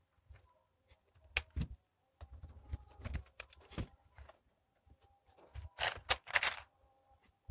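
Small plastic LEGO Technic parts and motors clicking and rattling as hands handle them and sort through plastic trays, with a louder burst of rummaging about six seconds in.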